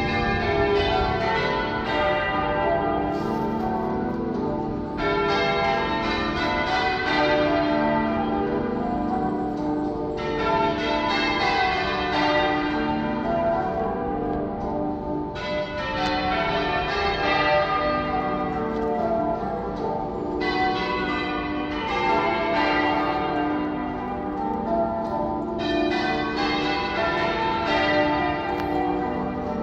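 Half-muffled church bells in change ringing: a ring of tower bells struck one after another in a steady stream. Every other row is muffled, so clear, bright rows alternate with duller rows about every five seconds, the echo-like effect of half-muffled ringing used for mourning and remembrance.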